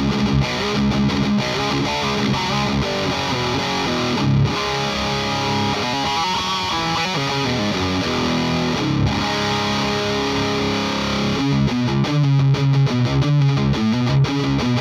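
Electric guitar with Mojo Tone Blackmagic pickups played through a distorted Rivera Knucklehead Reverb tube amp: held notes and single-note lines, then a fast, choppy low riff from about eleven seconds in.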